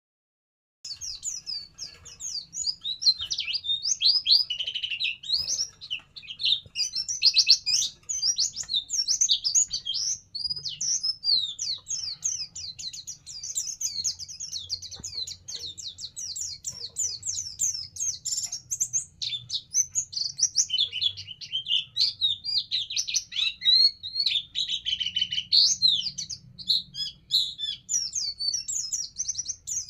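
Pleci (white-eye) songbird singing a rapid, high-pitched twittering song that barely pauses, starting about a second in.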